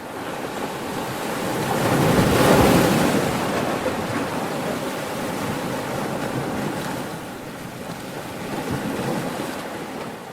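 Ocean waves: a rushing wash of surf that builds to its loudest about two and a half seconds in and slowly recedes, with a smaller swell near the end.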